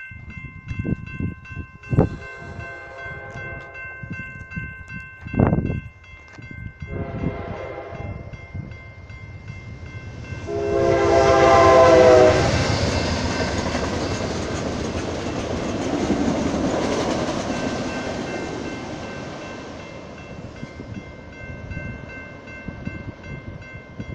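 Amtrak Cascades Talgo train approaching a grade crossing and sounding its horn in several blasts, the longest and loudest just before the locomotive passes about halfway through. The rush and rumble of the passing train follow and fade away over several seconds. The crossing signal bell rings steadily throughout.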